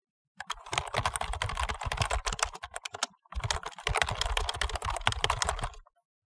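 Typing on a computer keyboard: rapid key clicks in two runs, with a brief pause about three seconds in.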